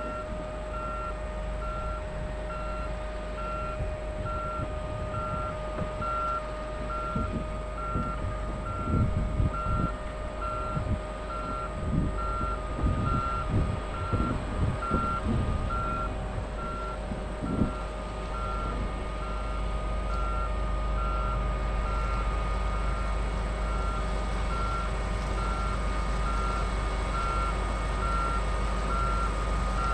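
Reverse alarm on a John Deere S670 combine beeping steadily, about one and a half beeps a second, as the combine backs up, over the steady drone of its engine. Irregular low thumps come in the middle.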